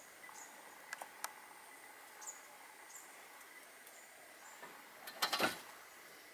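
Quiet outdoor ambience: a faint steady high tone with a few short high chirps and sharp clicks, then a brief, louder crackling rustle about five seconds in.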